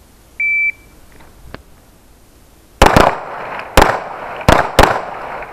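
A shot timer's short high start beep, then 9mm pistol shots from two shooters firing one-handed: five sharp reports, starting about two and a half seconds after the beep, the first two close together.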